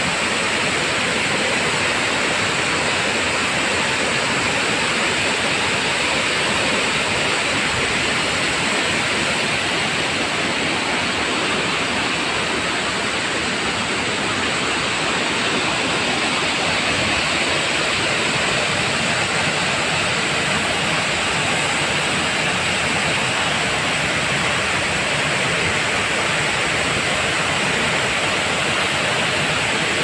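Steady rush of a ten-metre waterfall, falling water roaring evenly with no break.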